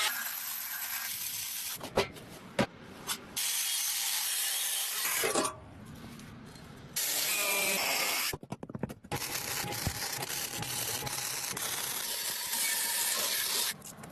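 Workshop restoration sounds: rough scraping and rubbing noise from hand or power tools, in short stretches that cut in and out, with a couple of sharp knocks about two seconds in.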